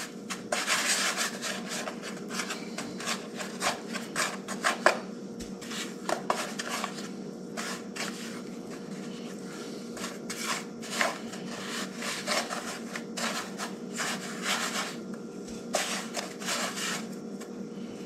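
Fish chunks being rolled and pressed in dry cornmeal breading, a gritty rubbing and scraping in short, irregular strokes, over a faint steady hum.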